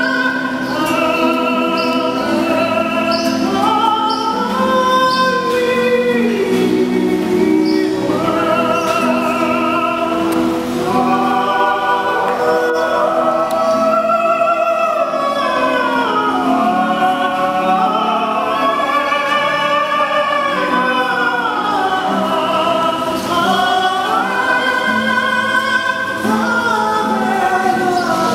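A male voice singing long, swooping phrases in an operatic style, with other voices holding harmony beneath it, echoing under a stone arcade.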